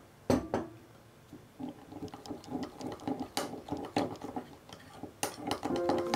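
A metal spoon stirring wet powdered gelatin in a small glass bowl, scraping and clinking against the glass. One sharp knock comes about a third of a second in, then a quick, irregular run of light clinks and scrapes.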